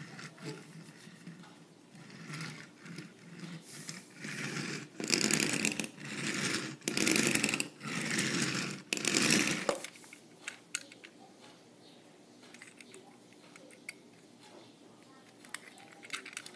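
Takara Tomy toy shinkansen train rolling on its wheels across a wooden table, pushed back and forth by hand: a run of rattling rolling strokes about a second each, loudest around the middle. After that only a few light clicks as it is handled.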